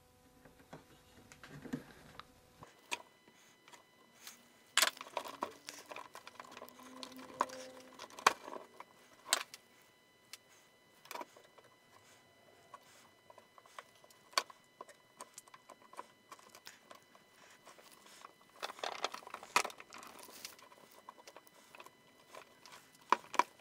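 Wooden wheel parts knocking and clicking together as spoke tenons are pressed back into the hub and rim segments by hand: scattered sharp taps and knocks, with a small cluster of them about 19 to 20 seconds in.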